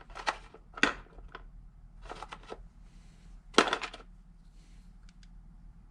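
Small TIG torch parts clicking and rattling as they are handled while a heat shield is swapped on the torch. The clicks come irregularly, with the loudest cluster a little past halfway, then a couple of faint ticks.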